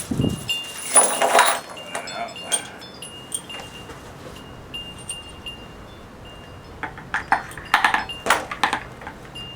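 Loose metal hardware clinking and knocking while a wheel's axle bolt, washer and retaining clip are fitted to a generator, with many short, bright ringing tones at the same pitch. There is a cluster of clanks about a second in and another near the end.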